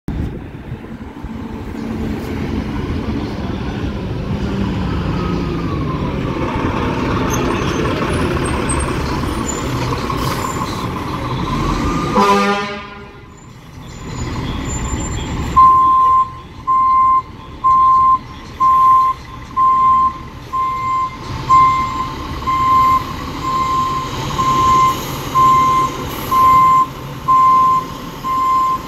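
Fire engine running as it approaches, with a short horn toot about twelve seconds in. Then the truck's reversing alarm beeps steadily about once a second as it backs up.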